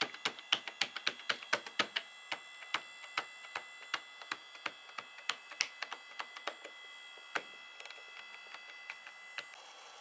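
Computer keyboard keys pressed one after another, several clicks a second at first, then thinning out to scattered single clicks, as keys are tried to eject a stuck CD. Faint steady high tones run underneath and stop near the end.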